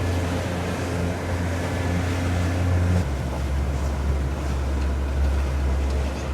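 Motorboat engine running under way over the rush of water and wind. Its low hum drops in pitch about three seconds in as the boat slows down.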